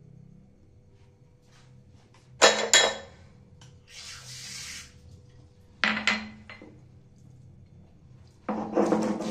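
Two short bursts of clattering knocks and a brief splash of running tap water, then near the end a stone muller starts grinding mustard and poppy seeds on a stone slab, a loud rapid rhythmic scraping.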